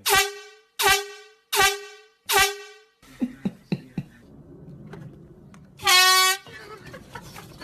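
Air horn blasting: four short blasts in quick succession, then after a pause with a few sharp clicks, one longer blast about six seconds in.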